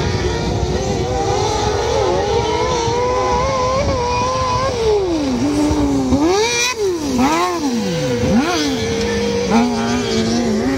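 Kart cross buggies' motorcycle engines racing at high revs, several at once, with the revs falling and rising sharply several times about halfway through.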